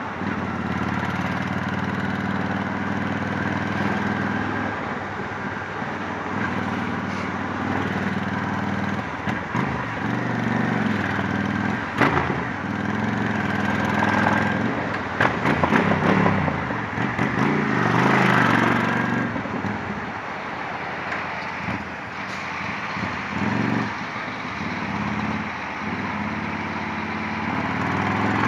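Honda Shadow 750 V-twin engine running through a Torbal sport exhaust while riding in slow highway traffic, its note rising and falling with the throttle. A rushing noise swells over it about halfway through.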